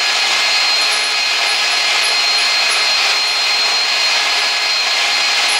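Hand-held electric drill running steadily as its twist bit bores through a steel plate (the log splitter's idler arm), with a steady high whine over the cutting noise.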